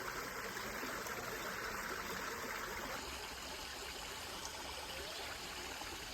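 Steady rushing of a flowing stream, a little quieter after about three seconds.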